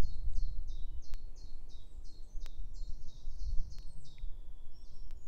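A small songbird singing a fast run of evenly repeated high notes, about three a second, that stops about four seconds in, over a low steady rumble.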